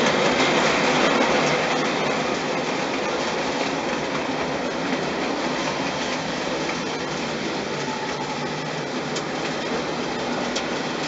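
Märklin gauge 1 HR model locomotive and two coaches rolling on three-rail tinplate track: a steady rolling noise of wheels on rails, loudest as the train passes close in the first two seconds, then a little quieter as it runs on around the layout.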